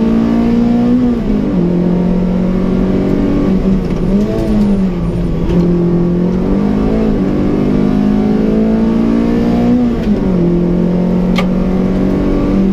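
Peugeot 106 Rallye's 1.3-litre 8-valve four-cylinder engine with an aftermarket exhaust, heard from inside the cabin under racing load. The note climbs and drops sharply at upshifts about a second in and again near ten seconds. Between those, as the car slows for a corner, it falls to lower revs with short rise-and-fall humps around four and seven seconds. A single sharp click sounds near the end.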